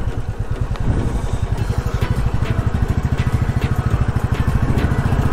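Royal Enfield Classic motorcycle's single-cylinder engine running at low speed with an even, rapid beat, with a few light clicks scattered through.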